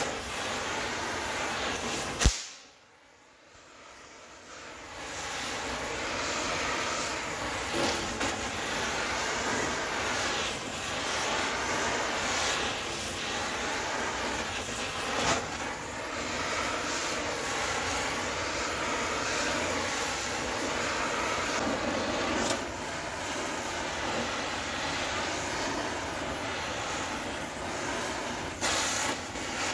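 Gas torch flame hissing steadily while heating a steel hub held in a puller. There is a sharp pop about two seconds in, a brief quiet spell, and then the hiss builds back up.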